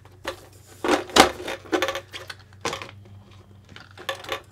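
Handling noise from a plastic RC car body: irregular clicks, taps and rustles as it is turned over and moved about, the loudest knock about a second in.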